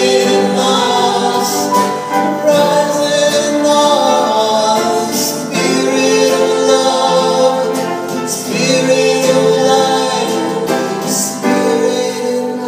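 Several voices singing together in sustained harmony, holding long notes.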